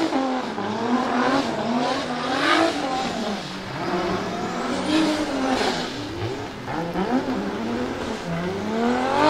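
Turbocharged Toyota 2JZ-GTE inline-six in a drifting Toyota GT86, revving up and down over and over as the throttle is worked, about once a second, on a low-boost setting.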